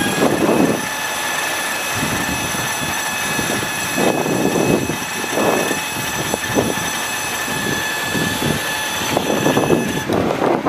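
Steady high-pitched mechanical whine from the utility truck's equipment, running over uneven low rumbling, and cutting off near the end.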